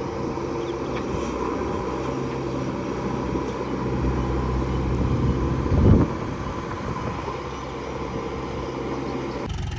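Heavy diesel engine running steadily, with a brief loud surge about six seconds in. The sound changes suddenly near the end.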